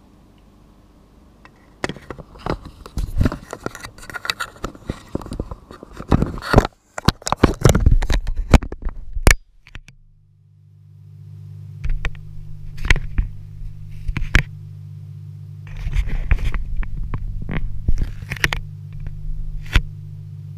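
Clicks, knocks and scrapes of a GoPro's plastic waterproof housing being handled and fitted to its suction mount, heard from inside the housing. About halfway a steady low hum sets in, with scattered knocks over it.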